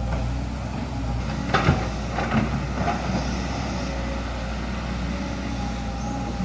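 Excavator's diesel engine running steadily, with a few short metallic knocks and clanks about one and a half to three seconds in.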